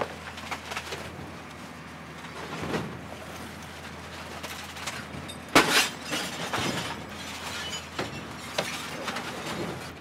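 A television set being smashed: repeated blows and crunching, with the loudest hit about five and a half seconds in, over a running crackle of breaking, shattering debris.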